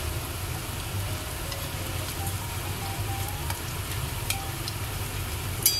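Gram-flour chicken pakoras deep-frying in hot oil in a wok, a steady sizzle, over a low steady hum. Light clicks of a metal wire skimmer against the pan as the fried pakoras are lifted out, with a sharper click near the end.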